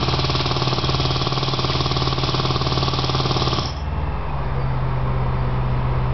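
Jackhammer breaking concrete with a fast, steady hammering that stops abruptly a little over halfway through, leaving a steady low hum.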